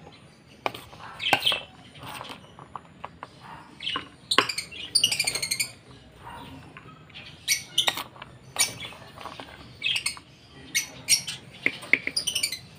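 Caged lovebirds and parakeets chirping and squawking in sharp, short calls, with a run of rapid repeated squawks about five seconds in and again near the end. A metal spoon scrapes and taps against plastic feeding dishes.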